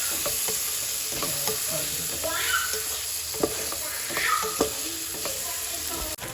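Diced carrot and vegetables sizzling in a hot pan as they are stir-fried, with a steady hiss and a few sharp knocks and scrapes of the spoon against the pan.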